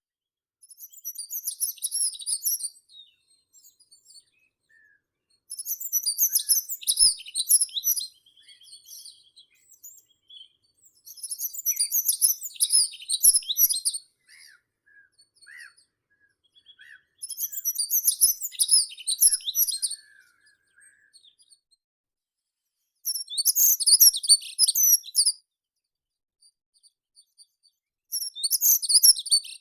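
A songbird singing the same short, rapid phrase of high, jumbled notes about every five to six seconds, six times in all. Fainter single notes from other birds fall in the gaps.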